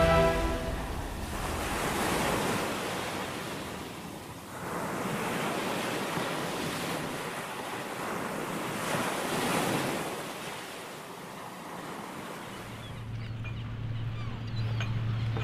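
Sea surf washing over rocks, swelling and fading in several surges. Near the end it gives way to a steady low hum with faint clicks.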